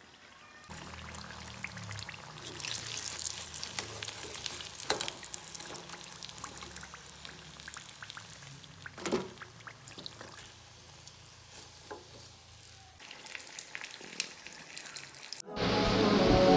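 Samosas deep-frying in hot oil in a kadai: a steady sizzle with scattered crackles and a few louder pops. Music comes in near the end.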